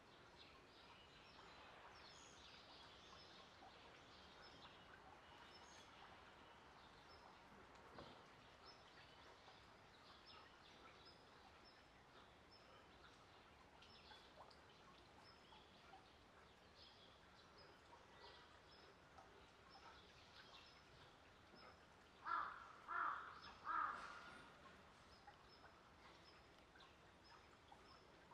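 Faint outdoor quiet with small birds chirping now and then. About 22 seconds in, three loud harsh calls come in quick succession, under a second apart.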